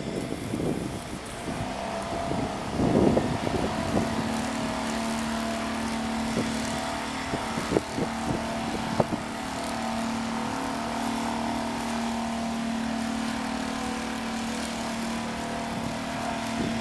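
A steady engine hum, with a few sharp knocks about eight and nine seconds in.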